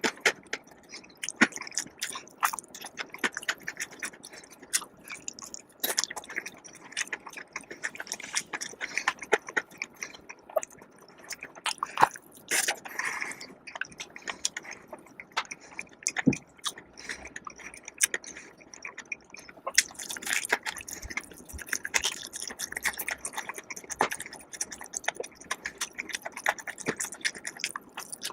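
Close-miked chewing and biting of food, with many short wet mouth clicks at an uneven pace.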